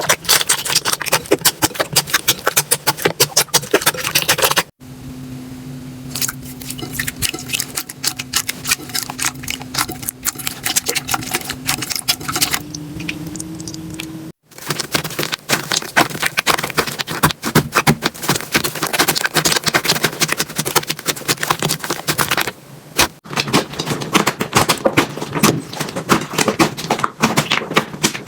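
Slime being squeezed and pressed by hand, making dense rapid crackling and popping clicks in short clips with hard cuts between them. In the middle clip the pops are sparser and quieter over a faint steady hum that steps up in pitch near its end.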